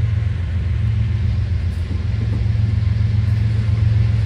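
Freight train's open-top cars rolling past, a steady low rumble of steel wheels on the rails.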